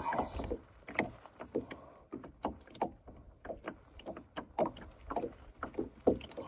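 Irregular knocks, clicks and rustling as a landing net and fishing tackle are handled against the side of a small plastic boat, several small impacts a second with no steady rhythm.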